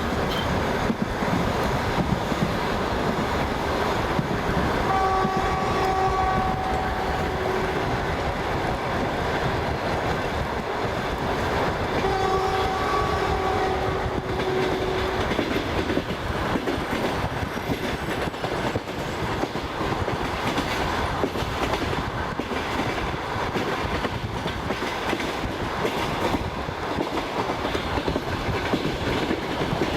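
Passenger train running at speed, heard from inside a carriage: a steady rumble with the wheels clacking over rail joints. Two sustained train-horn blasts sound, one about five seconds in and a longer one about twelve seconds in.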